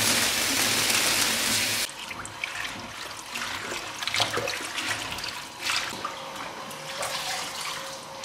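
Kitchen tap running hard into a stainless-steel sink full of spinach, stopping suddenly about two seconds in. Then hands swish and lift the spinach leaves in the water, with irregular splashes and dripping.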